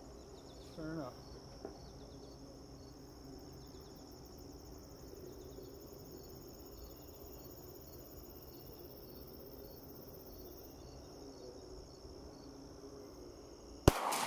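Crickets and other insects chirping in a steady, high, continuous drone, then a single sharp gunshot near the end.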